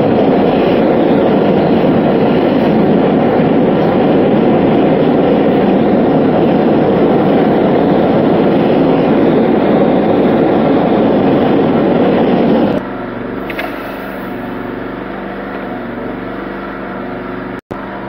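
Blowtorch flame blowing steadily and loudly as it heats a steel fitting, cutting off about 13 seconds in and leaving a quieter steady hum.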